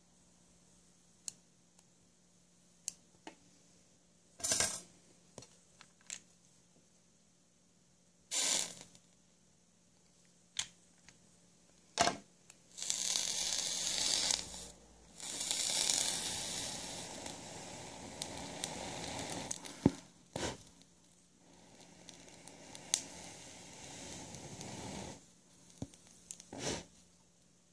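Exposed 28 AWG coil of a rebuildable atomizer being fired on a mechanical mod: scattered metallic clicks and short hissing bursts, then a longer crackling sizzle lasting several seconds as the coil glows and smokes.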